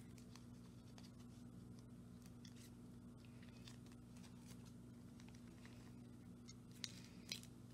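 Near silence over a steady low hum, with faint rustles and ticks and two small clicks near the end as a photocard is handled and slipped into a plastic binder sleeve.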